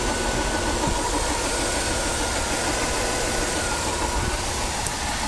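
1997 Buick LeSabre's 3800 V6 engine running steadily, with a faint steady whine over the engine noise. This is the car whose unexplained click is in question.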